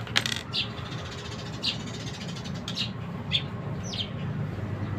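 Small birds chirping: about half a dozen short high chirps, several falling in pitch, over a steady low hum, with a sharp click just after the start.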